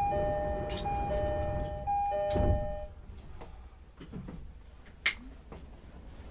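Door chime of a JR East E231 series train: a two-note high-low chime sounded three times as the doors close, with a heavy thud about two and a half seconds in as the doors shut. A sharp click follows about five seconds in, over a low rumble from the train.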